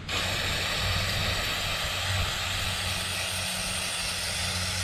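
Aerosol can of brake cleaner spraying in a continuous steady hiss onto the rusted armature of a 12 V DC worm drive motor, cleaning off the rust and gunk.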